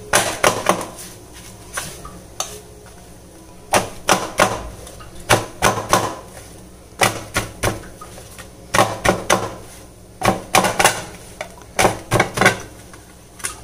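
Hands slapping and beating a stack of hot, freshly cooked parottas from the sides to separate the flaky layers: quick groups of two to four slaps, repeated about every second and a half.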